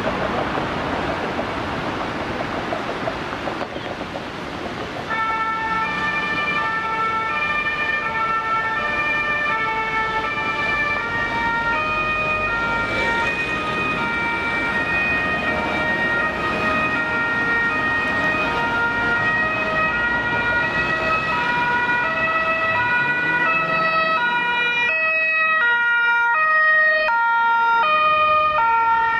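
Road traffic noise, then about five seconds in an emergency vehicle's German two-tone siren (Martinshorn) starts, alternating steadily between a high and a low note. It grows slightly louder toward the end as the vehicle comes closer.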